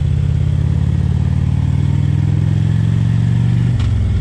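Harley-Davidson Electra Glide's V-twin engine running steadily under way, with a short click and a brief dip in the engine note near the end.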